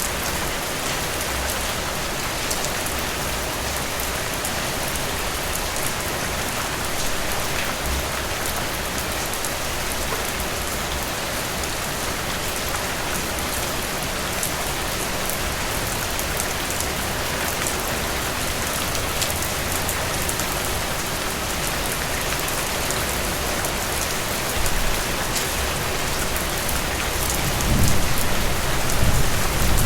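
Heavy rain falling steadily: a dense, even hiss with individual drops ticking through it. A low rumble swells near the end.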